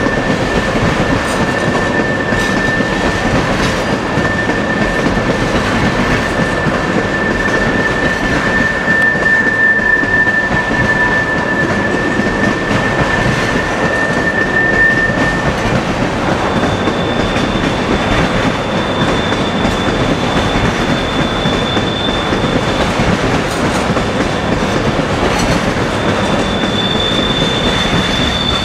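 Railroad cars rolling through a sharp curve, the wheels rumbling and clattering on the rails with a steady high-pitched flange squeal. About halfway through the squeal changes to a higher pitch, and near the end a second, still higher squeal joins it.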